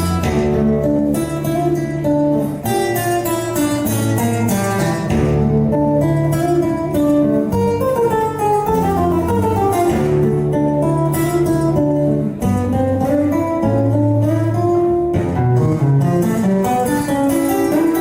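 Instrumental music led by fast plucked guitar picking over sustained bass notes.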